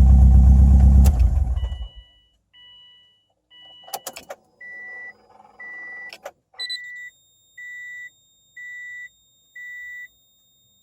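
2007 Subaru WRX STI engine idling roughly with a misfire on all four cylinders, switched off about a second in and dying away. Then the car's warning chime beeps about once a second, six times, with two clunks in between.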